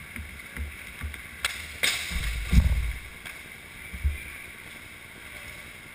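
Inline hockey play heard from the goal: two sharp clacks, about a second and a half in and just before two seconds, among low thumps and a rumble that is loudest at about two and a half seconds as the goalie shifts in the crease close to the net.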